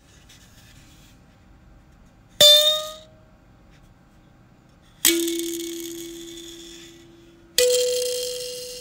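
Three sudden clanging strikes about two and a half seconds apart, each ringing on at one pitch and fading away. The first is higher and dies quickly; the second and third are lower and ring on for two seconds or more.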